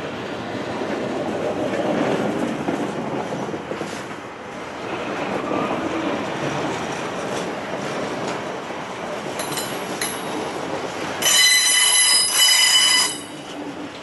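Container freight wagons rolling past at close range, their wheels rumbling and clattering on the rails. Near the end comes a loud, high-pitched metallic squeal from the wheels, lasting about two seconds.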